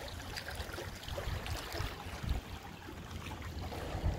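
Small waves lapping and trickling against a rock riprap shoreline, with an uneven low rumble of wind on the microphone.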